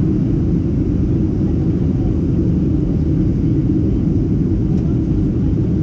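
Steady low cabin rumble of a Boeing 737-700 in flight, its CFM56-7B engines and the airflow heard from inside the cabin at a window seat over the wing.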